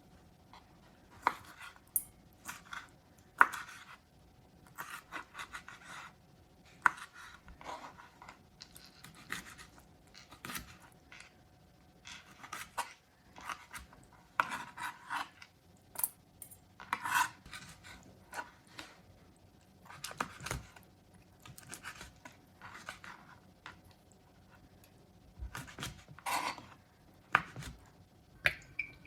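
Kitchen food preparation: scattered knife taps on a cutting board and short scraping sounds, irregular and with pauses between.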